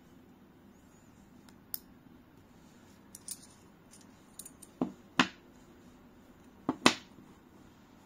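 Metal and magnetic parts of a fidget slider clicking against each other as they are pulled apart by hand. The clicks are sharp and come at irregular moments, with the loudest two about five and seven seconds in.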